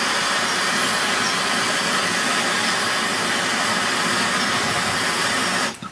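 Gas blowtorch flame hissing steadily, then cut off abruptly near the end.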